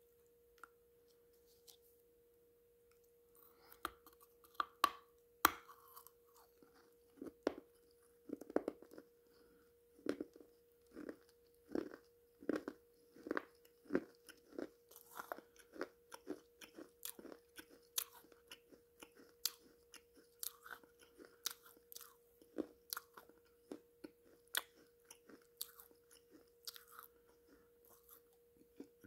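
Close-up biting and crunching of a piece of baked clay (terracotta) pot, sharp crisp crunches coming one to two a second from a few seconds in until near the end. A faint steady hum runs underneath.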